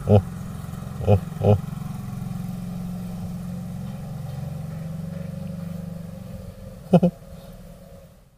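A vehicle engine running steadily nearby, fading out near the end. A few short, loud sounds cut across it: one at the start, two about a second and a half in, and a quick pair near the end.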